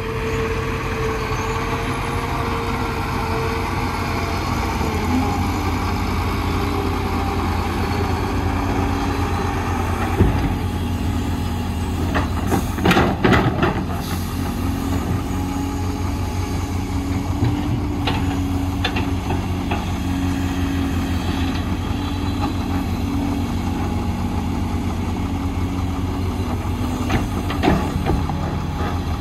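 Doosan DX300 excavator's diesel engine running steadily under load as it digs and swings, its note shifting as the arm and bucket work. Several clattering knocks of soil and rocks dropping into a steel dump-truck bed, the loudest and longest about 13 s in, with a shorter one near the end.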